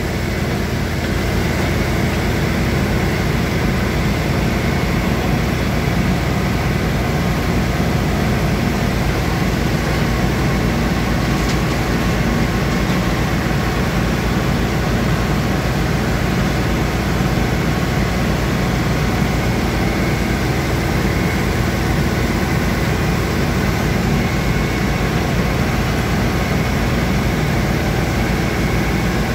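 Grab lorries' diesel engines running steadily to power their hydraulic loader cranes as the grab buckets load soil, a constant low rumble with a few steady tones above it.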